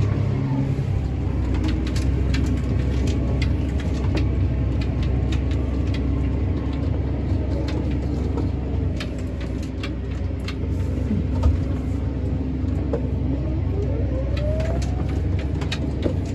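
Tractor engine running steadily under load while pulling a speed disc through the soil, with many scattered clicks and knocks over the steady rumble.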